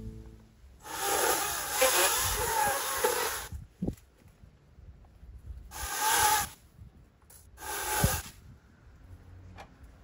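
Palm fronds rustling and scraping as they are cut and pulled from the tree, in three bursts, the first about two seconds long and two shorter ones later. Each burst is followed by a short dull knock as cut fronds drop.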